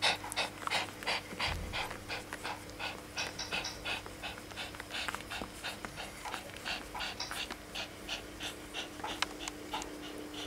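A nursing mother dog panting quickly and steadily, about three to four breaths a second.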